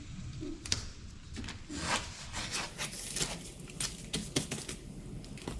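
Painter's tape being pulled off the roll and handled: irregular small clicks and taps with a few short rasping pulls.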